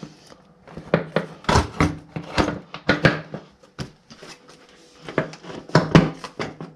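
KTM Duke 390 rider's seat being pushed down and worked into place on the bike: a run of hard plastic knocks and clunks, in two bunches, about a second in and again near the end.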